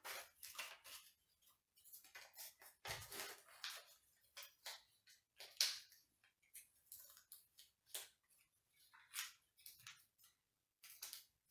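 Faint, irregular crinkling and rustling of a small folded paper slip being unfolded by hand.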